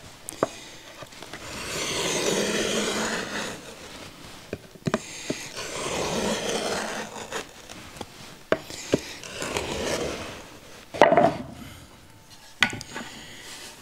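Wheel marking gauge drawn along the edge of a birch plywood panel, scoring a line with three long scraping strokes, with small clicks between them and a sharper knock near the end.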